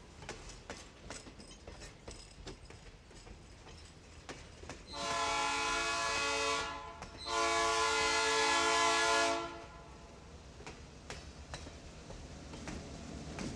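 Railroad passenger coaches rolling past, their wheels clicking over the rail joints. About five seconds in, a train horn sounds two blasts, the second longer. Near the end the diesel locomotive shoving the train grows louder as it approaches.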